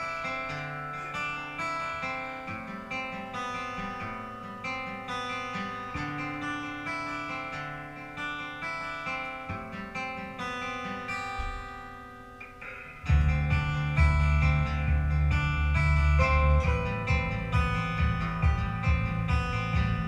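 Live band playing an instrumental song intro: acoustic guitar picking over a soft backing. About 13 seconds in, the bass and drums come in and the music gets much louder.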